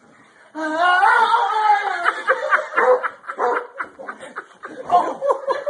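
A person laughing hard: a long drawn-out laugh about half a second in that breaks into quick rhythmic bursts of laughter.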